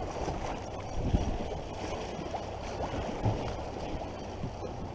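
Choppy sea water lapping against the side of a small boat, an even low wash of noise, with a couple of soft knocks about a second in and again just past three seconds.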